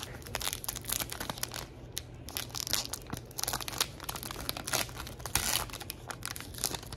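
Wrapper of a trading-card pack crinkling as it is opened, along with cards being handled: a quick, uneven run of rustles and clicks.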